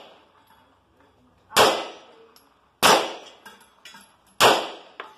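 Three shots from an Imbel MD1 GC 9mm pistol, the first about a second and a half in, then roughly a second and a half apart, each a sharp crack with a short fading echo.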